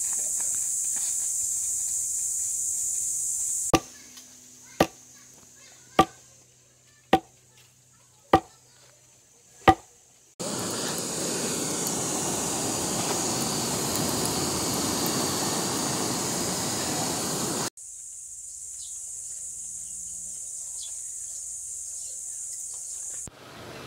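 Six sharp chopping strikes about a second apart, as with a heavy blade on a board or on meat and bone. Before them comes a steady high-pitched outdoor whine. After them comes a loud, even rushing noise that cuts off suddenly, then the high whine returns more quietly.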